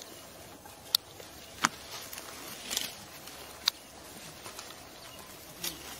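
Dry leaf litter and twigs crackling and snapping a few times, sharp snaps spaced about a second apart, over a steady outdoor hiss.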